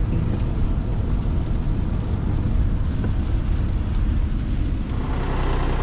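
Steady low rumble of a vehicle on the road. About five seconds in, it gives way to a steadier, even engine hum.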